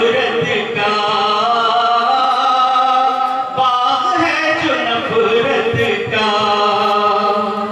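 A man chanting devotional verse in a long, held, melodic line, amplified through a microphone with no instruments. One phrase breaks off about three and a half seconds in, and the next begins a moment later.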